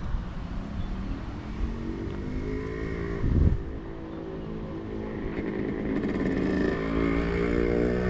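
A motor vehicle's engine running nearby, its pitch slowly rising over the last few seconds. A short gust of wind hits the microphone about three seconds in.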